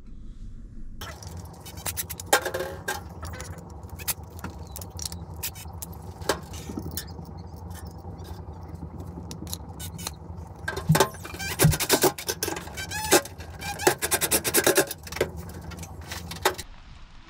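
Small metal hardware clicking, clinking and scraping as washers are fitted onto screws set through a stove leg, over a steady low hum. Rapid clinks bunch up about eleven to fifteen seconds in.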